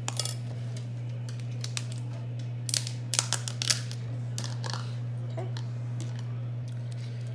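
Metal spoon scraping and clicking against a plastic sour cream tub: a few short clicks just after the start and a cluster of them about three seconds in, over a steady low hum.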